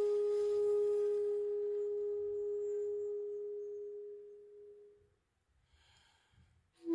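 A 3.6 shakuhachi (long bamboo end-blown flute) holds one long, pure note that slowly fades away about five seconds in. After a short pause with a faint breath, a new, slightly lower note starts sharply at the very end.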